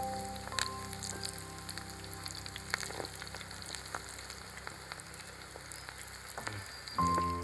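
Pakoda batter deep-frying in hot oil, a steady sizzle with scattered crackles. Soft background music with held notes plays under it and comes back louder near the end.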